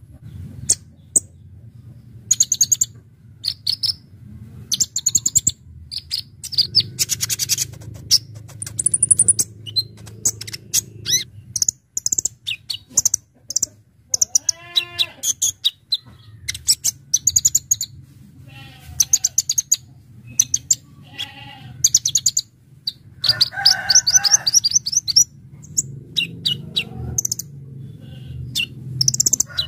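Kolibri ninja sunbird singing: a run of sharp, high-pitched chirps and rapid trills in quick bursts. A lower call comes about halfway through, over a low background hum.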